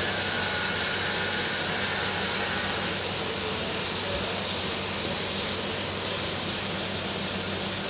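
Steady machine noise: an even rushing sound with a low hum under it, a little quieter from about three seconds in.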